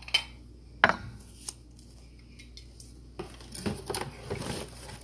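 Hard objects being handled and set down: one sharp clink about a second in, then a run of clatter and rustling over the last two seconds.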